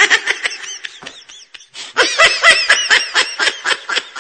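Rapid high-pitched laughter, a run of short 'hee-hee' bursts about five a second. It fades and breaks off briefly, then starts up again louder about two seconds in.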